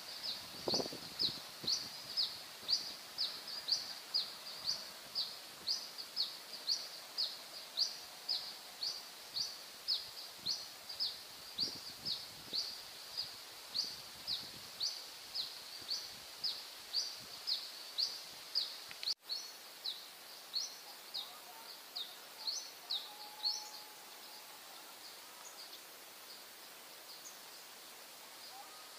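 A bird calling over and over, short high chirps that sweep downward, about two a second, stopping about four-fifths of the way through; faint outdoor hiss beneath.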